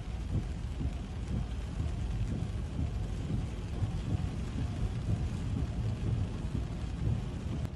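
Stormy weather: heavy rain hissing, with wind buffeting the microphone in a restless low rumble. The sound cuts off suddenly at the very end.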